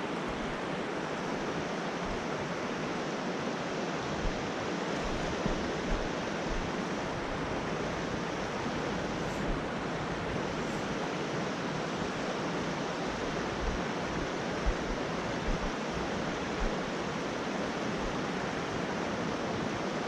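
Steady rushing of a trout stream's flowing current.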